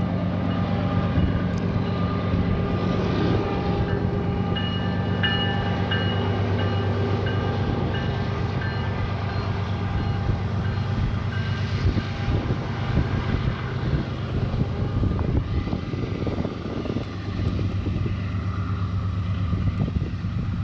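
Diesel-electric locomotives at the head of a BNSF intermodal train, their engines running with a steady low drone. From about twelve seconds in, an irregular crackling rumble from the approaching train joins the drone.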